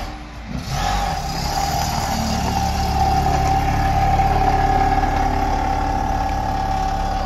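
Rotary-engined car running as it drives slowly away, a steady engine note that dips briefly near the start and then holds, with a constant higher tone laid over it.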